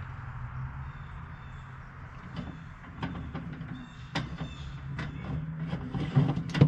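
Metal clinks and knocks from the wire racks of an electric Masterbuilt smoker and a sheet pan as fish fillets are laid on the racks, over a steady low hum. The knocks come irregularly from about two seconds in, the sharpest near the end.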